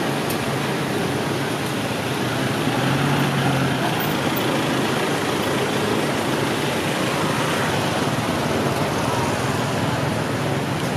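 Street traffic: cars and motor scooters passing, with a steady wash of road noise and a low engine note standing out briefly about three seconds in.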